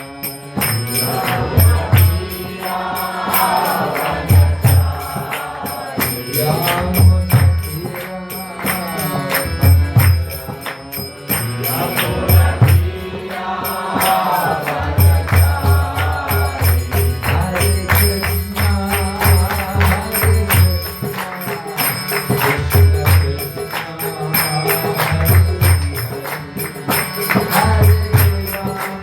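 Devotional kirtan: voices singing a chant over a beating hand drum and steadily jingling small cymbals.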